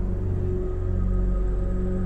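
Eerie background music made of low, steady droning tones.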